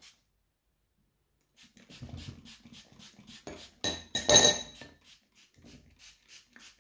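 Metal spoon tapping and clinking against a bowl while rose water is spooned into lemon soap, a run of light taps at about two to three a second. One louder ringing clink comes about four seconds in.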